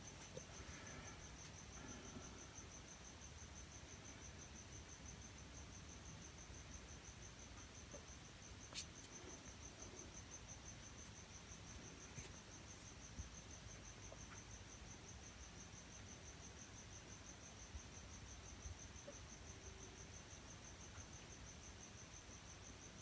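Near silence: room tone with a faint, steady, high-pitched pulsing tone throughout and a few faint clicks.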